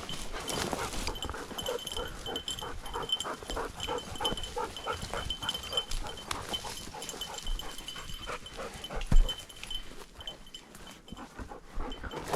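A bird dog panting fast and close, about three breaths a second, until near the end; one loud thump about nine seconds in.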